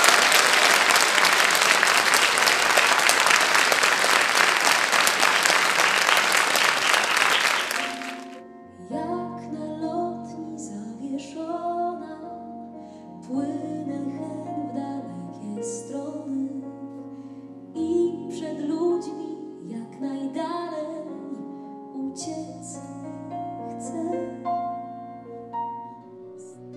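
Audience applauding for about eight seconds, then cutting off abruptly. A woman then sings with piano accompaniment.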